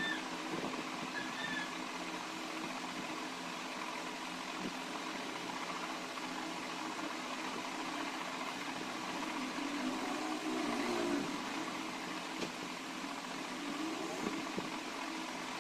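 Steady background hum and hiss, like a fan or machine running, with a few short high chirps near the start and again at the end.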